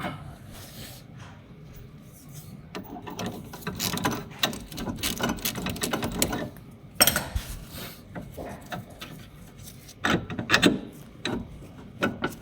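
Hand tools working on car suspension parts: irregular clicking, rattling and knocking of metal, with the sharpest knocks about halfway through and again near the end.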